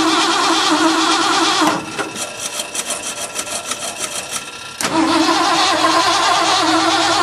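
A 1979 Ford F100's 5.0 V8 being cranked over by the starter, with a steady pulsing churn. It is the first start attempt after five years sitting, with fresh fuel just put to it. The cranking breaks off about two seconds in, leaving a quieter rapid ticking for about three seconds, then cranking resumes just as loud.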